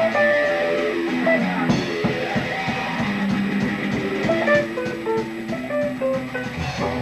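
Live rock band playing: an electric guitar picks a melodic single-note line over drums, with the drum strokes coming in clearly about two seconds in.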